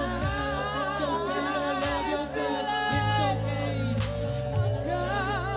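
Live music: a wooden Native American-style flute and wordless vocals play wavering, vibrato-laden melodic lines over a held low bass drone, which shifts to a new note about three seconds in.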